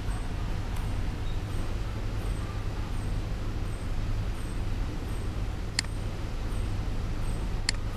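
Steady low rumble of background noise on the microphone, with two sharp computer mouse clicks, one about six seconds in and one at the very end.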